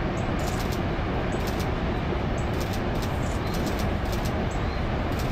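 Steady, even roar of giant breaking surf and wind, heavy in the low rumble, with no distinct events.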